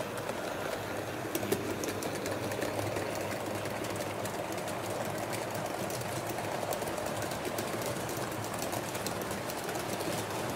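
HO scale model train running along the track: a steady small-motor whir with many quick, irregular clicks of the wheels over the rails.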